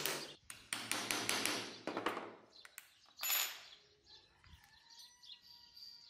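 Stitching chisel being struck repeatedly to punch stitch holes through leather sheath pieces: a quick run of sharp taps, about four a second, that stops about two and a half seconds in.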